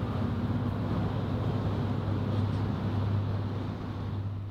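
Steady low drone of road traffic with wind on the microphone, starting to fade out near the end.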